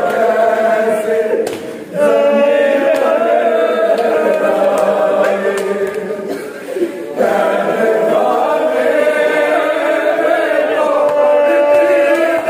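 A noha khawan party chanting a noha, a Shia lament, together in a group with voices only and no instruments. The chant breaks briefly about two seconds in and again about seven seconds in.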